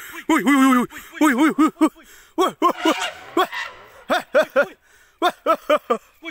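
People shouting short, repeated calls, like 'hula', in quick bursts of rising-and-falling yells, to drive off a wild elephant.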